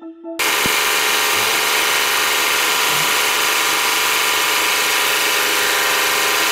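Electric saw running steadily, cutting in abruptly about half a second in, as a wood block for carving is set against its thin blade. A moment of music ends just before it starts.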